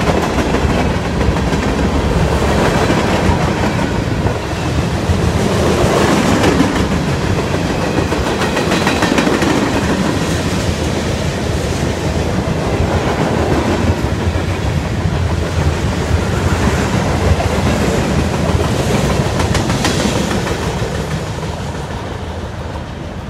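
CSX freight cars (coal gondolas, tank cars, a boxcar and covered hoppers) rolling past at trackside, steel wheels clattering over the rail joints. The sound fades over the last few seconds as the tail end passes and moves away.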